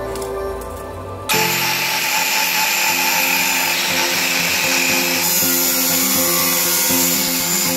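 Soft background music, then about a second and a half in a large Makita angle grinder cuts in abruptly, running with a steady whine as its cut-off disc cuts through a steel tube. The hiss of the cut grows brighter around five seconds in as the disc bites deeper.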